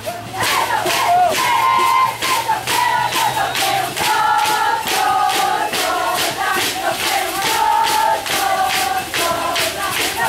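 Crowd of voices chanting in unison over a fast, steady beat of sharp strikes.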